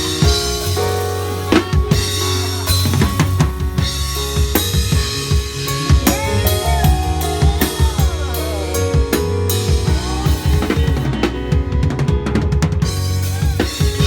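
A band playing together, led by a drum kit with kick drum, snare and rimshots, over held bass notes and other pitched instruments.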